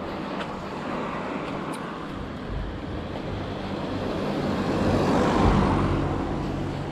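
A car driving past on the street, its engine and tyre noise swelling to a peak about five seconds in and then fading away.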